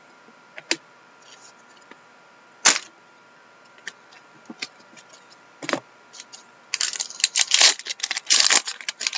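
A few sharp snaps and clicks of trading cards being handled, then, from about seven seconds in, a dense crinkling and tearing of a card pack's wrapper being ripped open by hand.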